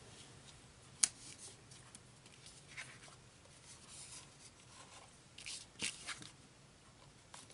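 Faint rustling and sliding of cardstock sticker sheets being handled on a table, with one sharp tap about a second in and a few louder paper rustles a little before the end.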